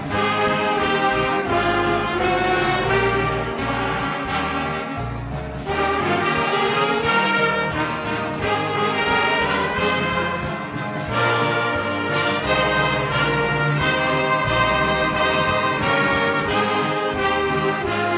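Brass ensemble of trumpets and trombones playing sustained chords, in phrases that break briefly about every five to six seconds.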